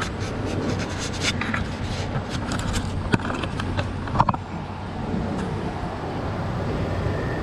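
Steady hum of a shop fan, with scattered light scrapes and clicks over the first four seconds or so.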